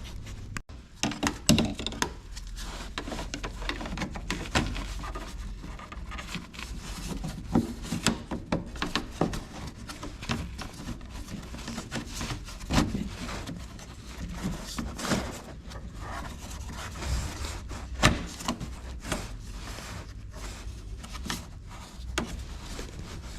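Hand work refitting plastic underbody covers and their bolts beneath a car: irregular knocks, clicks and scraping of plastic and tools. The loudest knocks come about 1.5 s, 13 s and 18 s in.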